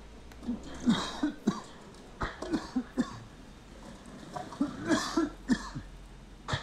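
A person coughing hard in three short fits in air thick with dust and smoke from an anti-tank weapon fired inside the room, with a sharp knock near the end.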